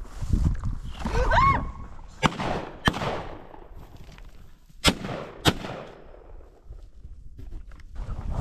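Shotguns fired at a flushing covey of Mearns quail: four shots in two quick pairs, each shot with a fading echo, and the second pair comes about two seconds after the first. Just before the first shot comes a short cry that rises and falls.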